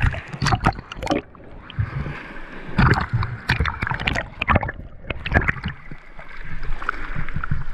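Choppy sea surf washing and breaking over rocks at the waterline, with irregular splashes and gurgling close to the microphone as water sloshes over it.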